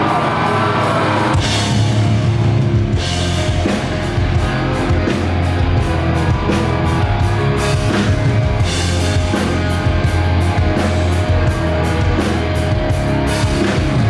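Metalcore band playing live at full volume: distorted electric guitars, heavy bass and a drum kit, with a fast, steady run of cymbal hits through the second half.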